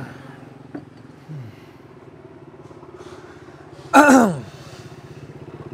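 A steady low mechanical hum with a fine, even pulse, and a short loud spoken sound from a woman, falling in pitch, about four seconds in.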